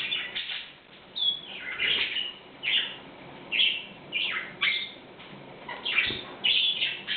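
Canary chirping: about eight short call notes with quick pitch sweeps, spaced roughly a second apart.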